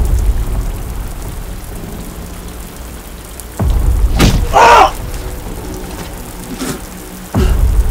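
Steady rain with three sudden, deep thunder-like booms that fade slowly, about three and a half seconds apart. Between the second and third there is a short, wavering, voice-like cry.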